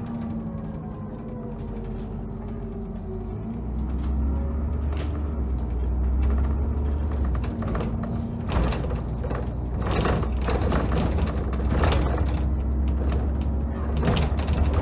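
Dennis Trident double-decker bus heard from the upper deck: a drive-line whine falls in pitch as it slows, then the diesel's low drone rises about four seconds in as it pulls away. Loose body fittings rattle and knock throughout the second half.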